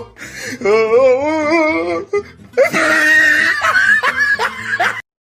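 Electronic toy voice from a Minion toy: a high, wobbling cartoon laugh, then a brighter tune-like stretch. It cuts off suddenly just before the end.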